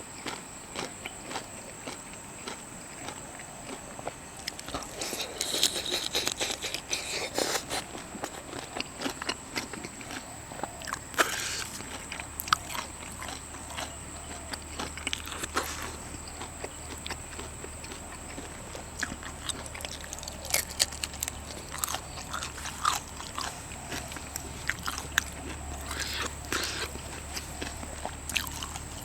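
A person eating seafood: chewing and biting, with scattered crunches and sharp clicks.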